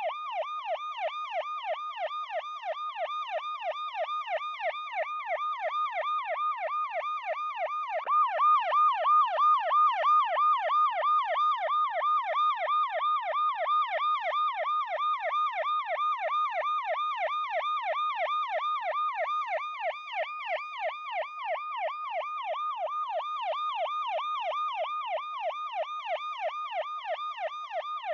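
Police car siren in a fast yelp, its pitch sweeping up and down about three times a second without a break. It gets louder about eight seconds in.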